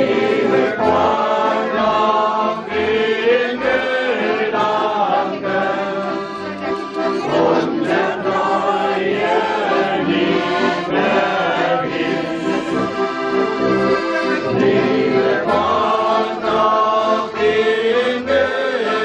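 A group of voices singing together to instrumental music.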